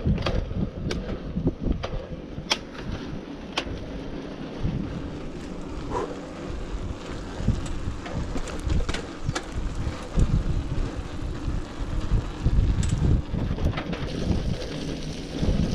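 Mountain bike being ridden over rough paths: gusting wind rumble on the microphone, with scattered sharp clicks and knocks from the bike as it jolts along.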